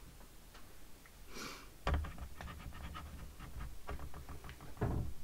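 A woman's breathing close to the microphone: a breath about a second and a half in, then soft scratchy rustling with quick ticks and a low rumble, and a short huffing exhale near the end.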